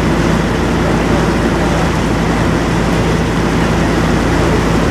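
Sightseeing boat's engine running with a steady low hum, heard from on board.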